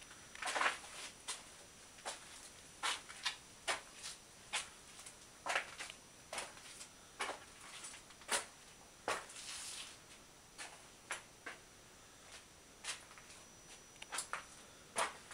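Scattered light clicks and knocks at an irregular pace of about one or two a second, with a short scrape about nine seconds in.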